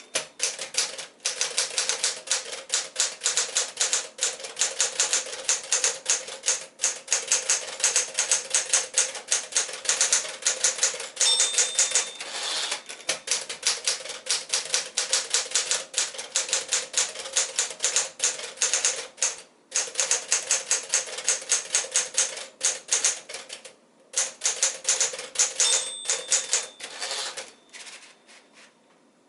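1964 Smith-Corona Sterling portable manual typewriter being typed on at speed, a rapid run of keystrokes with short pauses. Twice a brief ring, the margin bell signalling the end of a line, with carriage returns after it. The typing trails off near the end.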